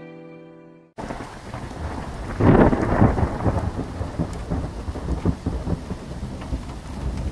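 Thunderstorm sound effect: steady rain that starts abruptly about a second in, with a loud crackling, rumbling thunderclap about two and a half seconds in. Sad violin music fades out just before it.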